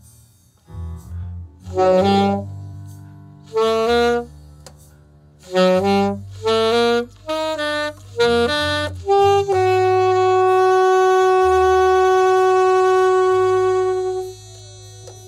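Saxophone playing a melody: several short phrases of quick, separate notes, then one long held note from about the middle until about a second before the end.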